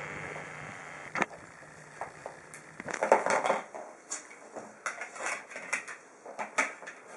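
Plastic spring clamps being unclipped from a frame's edge and set down on a wooden table: a scattering of clicks and clatters, busiest about three seconds in.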